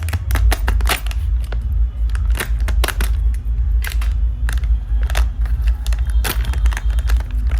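Close-up crackling and crinkling handling sounds: quick, irregular sharp clicks, several a second, over a steady low rumble.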